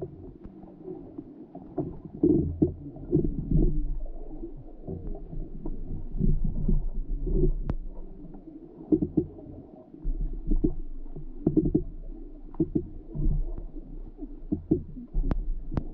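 Muffled underwater rumble of water rushing past a GoPro's waterproof housing as it is towed along, swelling in uneven surges about once a second, with a few sharp clicks.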